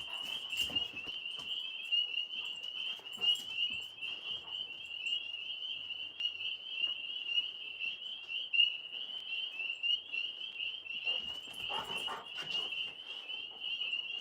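A chorus of frogs calling in one continuous high trill, with a few faint clicks.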